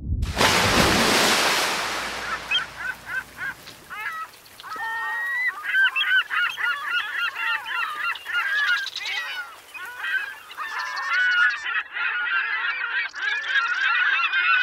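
A rush of noise at the start, then a flock of birds calling over one another, many short honking calls that rise and fall in pitch and grow denser toward the end.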